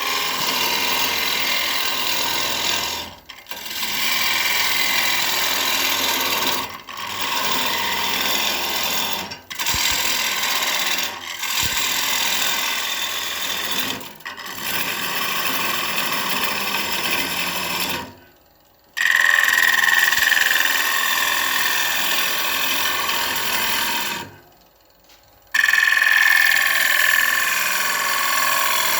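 Gouge cutting into an ash blank spinning on a Powermatic PM2014 wood lathe: a steady scraping hiss, broken by several brief dips and two longer breaks of about a second. A faint high whine runs along with the cutting after each longer break.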